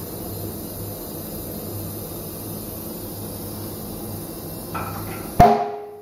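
Steady workshop hum, then a light click and, a moment later near the end, a single sharp metallic clank that rings briefly before dying away.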